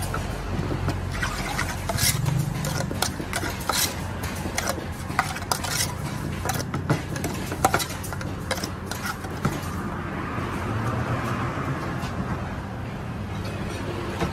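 Metal spoon clinking and scraping against an aluminium saucepan as a dressed salad of sliced grilled beef and herbs is tossed, in quick irregular strokes that stop about nine or ten seconds in.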